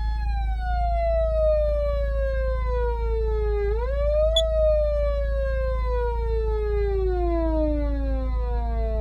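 Patlite SAP500BZ electronic siren amplifier sounding a siren tone that slides steadily down in pitch, jumps back up briefly with a click about four seconds in, then glides slowly down again. A steady low hum runs underneath.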